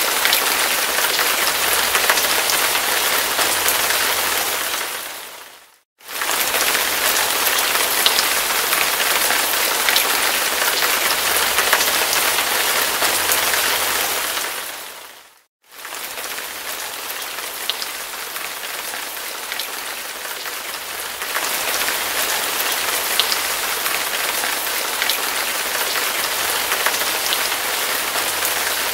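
Hard rain falling steadily, a dense hiss with fine drop ticks. It fades out to silence twice, just before six seconds and about fifteen seconds in, and comes straight back each time; after the second gap it is a little quieter, then fuller again from about twenty-one seconds.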